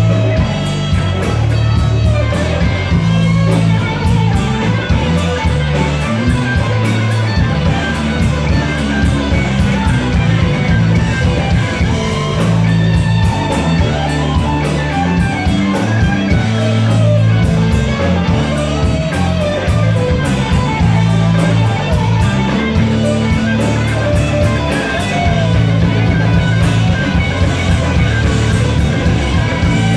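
Live rock band playing loud: electric guitar lines over bass guitar and drums.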